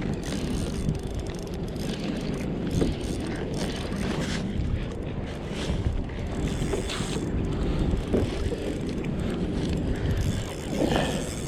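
Wind buffeting the microphone on a kayak on open water, a steady rumble with scattered light clicks and knocks.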